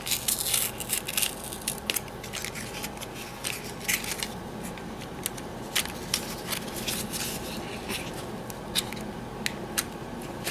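Small cardboard eyeshadow box being handled and opened: flaps pried apart with irregular snaps, clicks and short scraping rustles of the paperboard.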